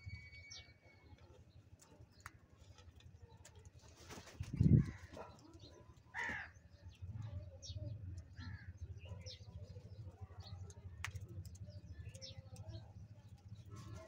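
House crows feeding at a plastic bowl of grain: scattered short bird calls and sharp pecking clicks over a steady low hum. One low thump about five seconds in is the loudest sound.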